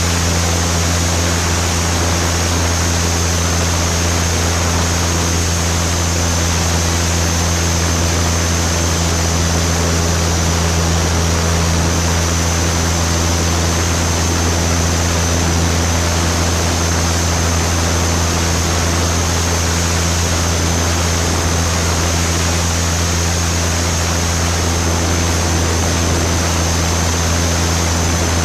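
Piper Super Cub's engine and propeller running steadily in flight, a loud even drone with a deep low hum, over a constant rush of air.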